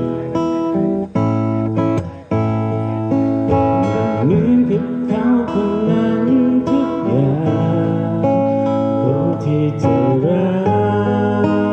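Background music: a song with strummed acoustic guitar.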